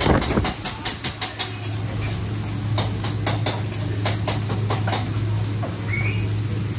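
Kitchen clatter: a quick run of sharp taps and clicks from cooking utensils, then scattered single taps, over the steady low hum of the extractor hood.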